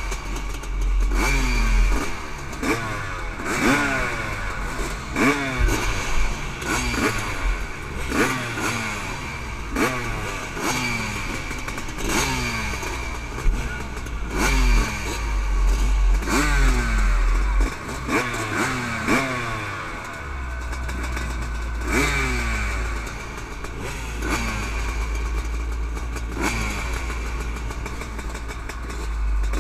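Motocross bikes, a 1996 Honda CR500 two-stroke among them, blipping their throttles over and over while waiting at the start gate: revs rise and fall sharply about once a second.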